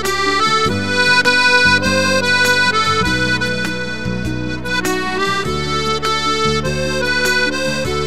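Piano accordion playing a melody with chords over held bass notes that change every couple of seconds.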